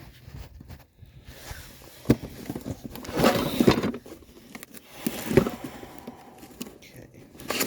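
Brake springs and small brake parts being handled: a few sharp clicks and knocks, with a louder scraping, rustling stretch about three seconds in.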